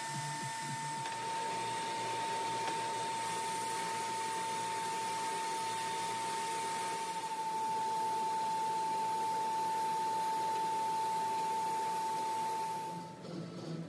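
Ridgid benchtop oscillating edge belt/spindle sander running steadily with a high, even whine while a wooden fence piece is sanded against it, its dust-extraction hose drawing air. The machine shuts off near the end.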